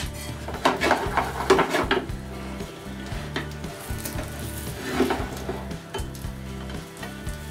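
Metal spatula scraping and clinking against a non-stick frying pan as it works under a frying omelet, in a cluster about a second in and again around five seconds in, over the omelet's steady sizzle.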